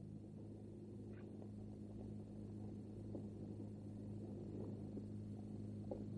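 A low steady hum on an old film soundtrack, with a few faint small ticks and no other clear sound.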